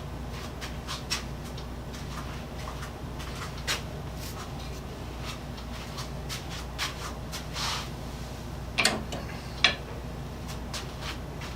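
Scattered light clicks and taps of hands handling tools and parts on a workbench, over a steady low hum. Two sharper clicks come about two-thirds of the way through, less than a second apart.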